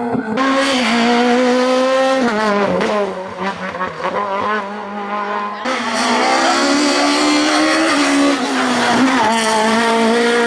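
Maxi kit car's high-revving four-cylinder engine running hard at full attack, its pitch dropping sharply about two seconds in and again near the end as it changes gear or lifts off, then climbing again.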